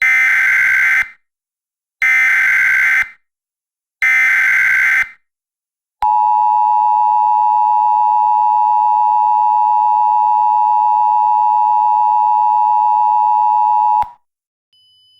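Emergency Alert System tones: three one-second bursts of SAME digital header data, a second apart, followed by the steady EAS two-tone attention signal held for about eight seconds and then cut off abruptly.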